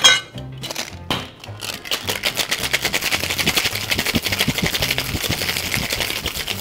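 Two metal cocktail shaker tins knocked together to seal them, a second knock about a second later, then the shaker shaken hard, with ice rattling inside in a fast, steady rhythm from about two seconds in.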